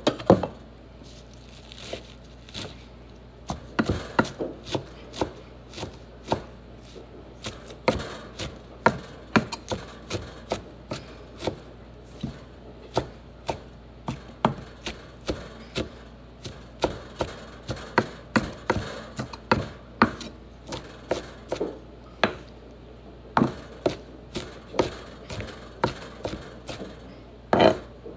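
Kitchen knife chopping fresh spinach on a wooden cutting board: sharp knocks of the blade on the board in an uneven rhythm, roughly two a second.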